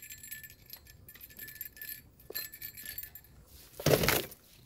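Small bite-alarm bell on a fishing rod tip jingling in quick, light shakes, the sign of a fish working at the bait. About four seconds in comes a brief, louder rush of noise.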